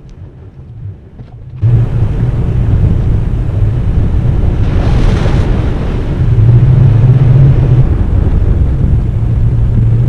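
Toyota Tacoma pickup driving a dirt forest trail, heard from a hood-mounted camera: a steady low engine drone under rumbling road and wind noise, jumping louder about two seconds in, with a brief louder rush of noise about halfway through.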